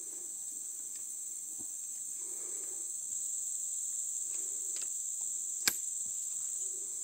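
Steady high-pitched drone of insects, with a few sharp clicks, the loudest about six seconds in.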